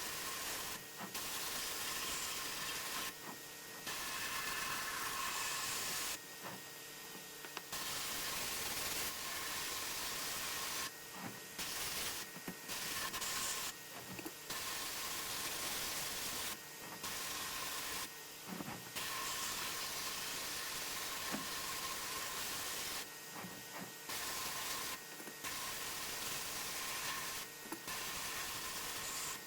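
Sandblasting gun hissing inside a blast cabinet, in stretches of a few seconds broken by short, abrupt gaps, over a faint steady hum.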